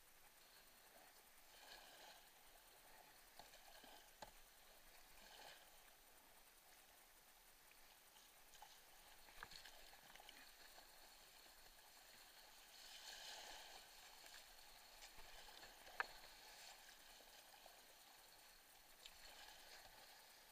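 Faint splashing and rushing water from a kayak being paddled down a fast, high creek, the sound swelling with the paddle strokes, with a sharp click about sixteen seconds in.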